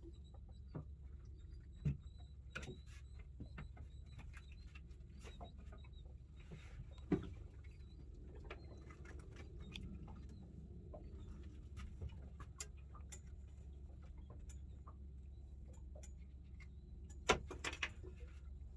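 Scattered light clicks and taps, with a few sharper knocks about two, seven and seventeen seconds in, over a low steady rumble: the handling of a freshly landed small fish and fishing tackle.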